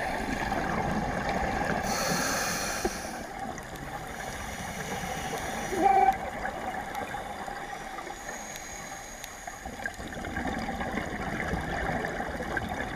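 Muffled underwater noise picked up through a camera housing on a scuba dive, with gurgling water and bubble sounds from the diver's breathing. There is a brief louder burst about six seconds in.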